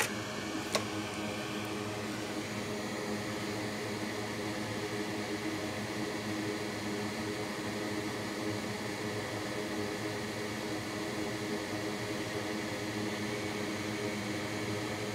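Steady whir and hum of a fan running, with one small click about a second in.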